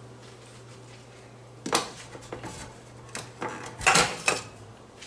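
Pots, pans and utensils knocking and clinking in the kitchen: one knock, then a few light clinks, then a louder burst of clatter near the end.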